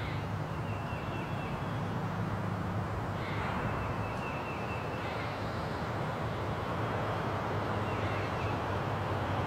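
Spring forest ambience: birds call several times, short calls that each start with a harsh stroke, over a steady hiss of the woods and a low, even rumble.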